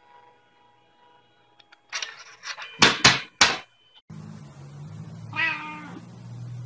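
A few sharp, loud noisy bursts about two to three and a half seconds in. A single short cat meow follows near the end over a low steady hum.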